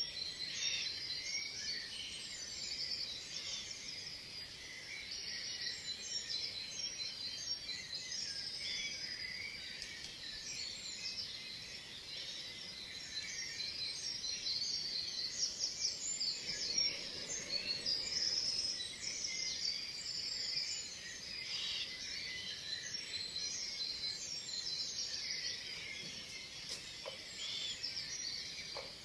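Many songbirds singing at once, a dense overlapping chorus of chirps and trills over a faint background hiss.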